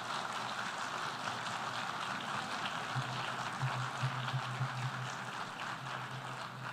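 Audience applauding: a steady patter of many hands clapping at once, beginning to thin out near the end.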